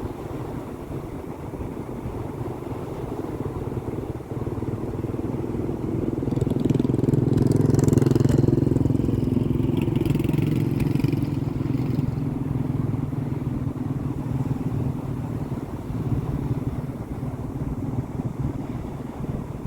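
Sea waves with a steady low rumble; about six seconds in, a wave breaks and swells louder with a hiss of spray, then eases back over the next few seconds.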